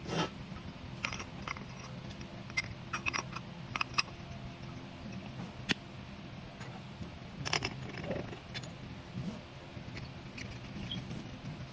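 Small metal parts and tools clinking and tapping at irregular moments, with a cluster of clinks about halfway through, over a steady low hum.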